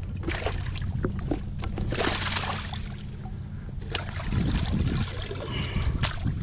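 Wire-mesh fish basket being dunked and lifted through water among weeds, making splashing and trickling sounds. Sharp clicks of the wire frame and lid come through it, and there is a bigger splash about two seconds in.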